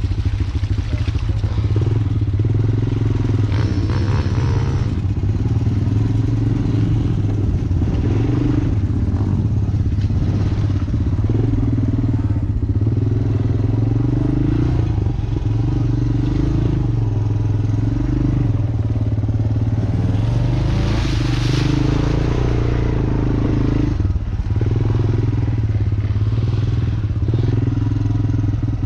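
Off-road vehicle engine running under load as it is ridden over a rough, muddy track. Its note steps up and down every second or two with the throttle, with some clatter from the ride and a couple of brief noisy surges.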